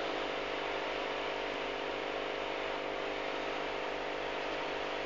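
Aquarium pump humming steadily over an even hiss.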